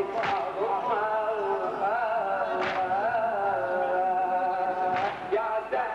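Shia Muharram lament (latmiyya) chanted by a male voice in long, wavering held notes, with the mourners' unison chest-beating (latm) striking as a sharp slap three times, about every two and a half seconds.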